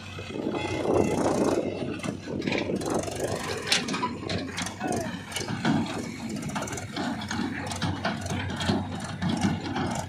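Mahindra tractor's diesel engine running as it pulls a steel tipping trailer, with the trailer rattling and clanking throughout.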